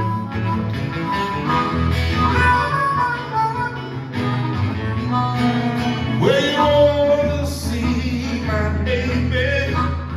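Live acoustic blues music with guitar and harmonica, in an instrumental passage; about six seconds in, a note slides up and is held.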